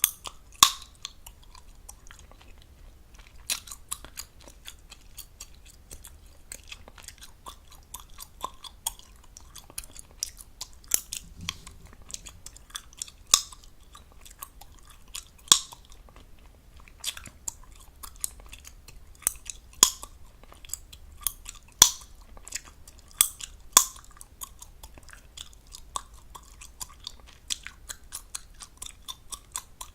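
Gum chewed fast and close to the microphone: a steady run of wet smacking and clicking, with a loud, sharp gum pop every two seconds or so.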